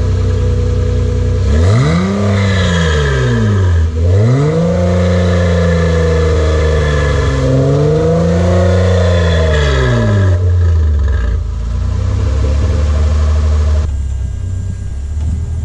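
Mid-mounted Honda V6 engine in a race car idling, then revved up and let fall back twice over several seconds before settling back to a steady idle. This is its first run after a timing belt replacement, and it runs smoothly.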